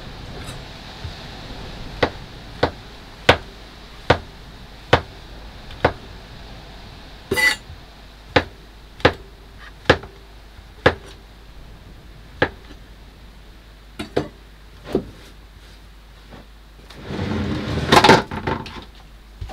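Knife chopping food on a cutting board: single sharp knocks about once every three-quarters of a second, thinning out after the middle. Near the end, a louder, longer rustling clatter.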